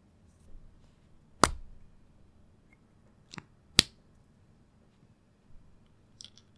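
A few sharp clicks of small plastic parts being handled: two loud ones about a second and a half and almost four seconds in, a softer one just before the second, and a light clatter of small clicks near the end.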